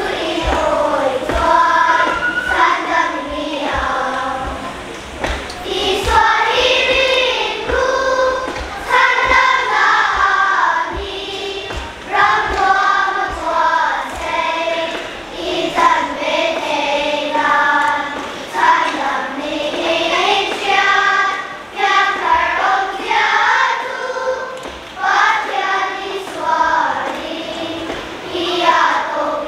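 Children's choir singing together in phrases, led by a conductor.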